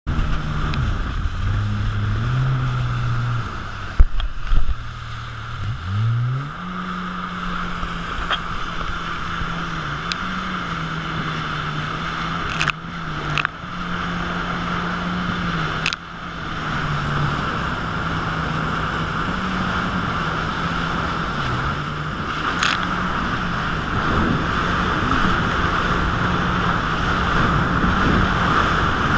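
Jet ski engine running at speed, its pitch stepping and then rising as the throttle opens about six seconds in, then holding steady, over rushing water and spray. A few sharp knocks stand out, the loudest about four seconds in.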